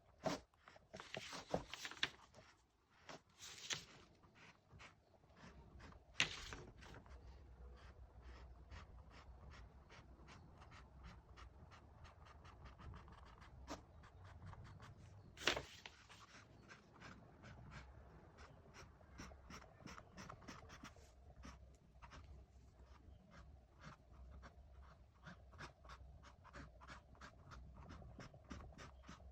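Paintbrush working oil paint on a canvas: a quiet, quick run of short dabbing and brushing strokes, several a second, with a few louder, longer strokes in the first seconds and one about halfway.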